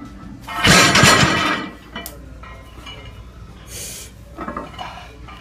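A loaded barbell with iron plates comes down from a sumo deadlift lockout and lands about a second in, a loud crash with a clanking rattle of the plates. A single lighter click follows soon after.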